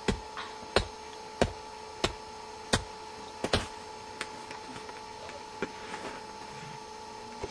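Repeated blows of a hand tool beating an owl carcass on the ground to tenderize the meat, a sharp thud about every two-thirds of a second, weaker after about four seconds. A steady electrical hum runs underneath.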